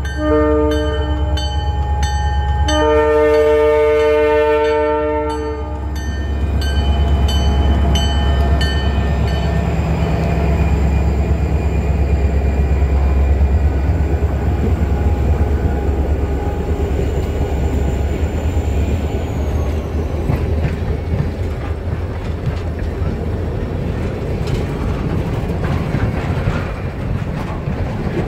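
Freight train horn blowing over a grade-crossing bell that dings about three times a second. One blast ends about a second in and a second runs about three seconds. The pair of diesel locomotives rumbles past, the bell stops about nine seconds in, and the freight cars roll by with steady wheel-on-rail noise.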